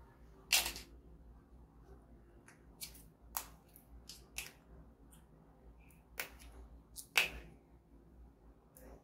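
Packaged biscuits being handled and opened: a string of short, sharp crackles at uneven intervals, loudest about half a second in and about seven seconds in.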